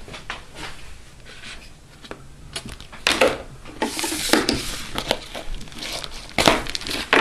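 Packaging being crinkled and torn by hand, scattered rustles at first, then denser and louder crinkling from about three seconds in.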